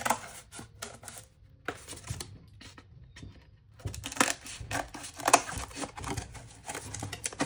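Cardboard sheet being handled and bent along a scored line: a string of light crackles and taps, with a quieter gap of a couple of seconds in the middle before a busier run of them.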